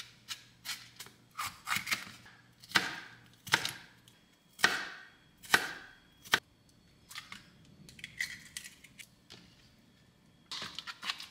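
Kitchen knife chopping peppers and onion on a cutting board in irregular sharp strokes, about one or two a second, with harder chops in the first half and lighter taps later.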